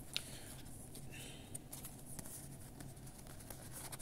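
Faint rustling and light clicks of tarot cards being handled and slid against one another by hand, with one sharper click just after the start, over a low steady hum.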